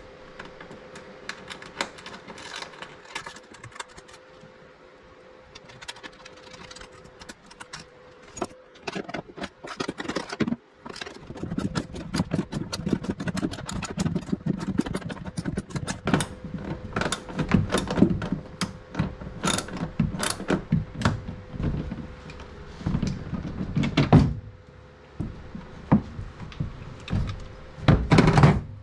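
Clicks, knocks and rattles of bolts and mounting hardware being handled and fitted on a kayak bow mount plate, sparse at first and busier with heavier thuds from about a third of the way in. A faint steady hum runs underneath.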